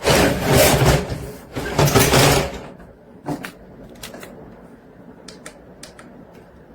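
Handling noise: two scraping, rustling sounds about a second each, then a few light clicks.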